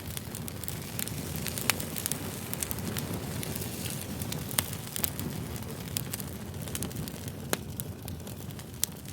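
Wood campfire burning, with a steady low rumble and frequent sharp pops and crackles, a few louder snaps scattered through.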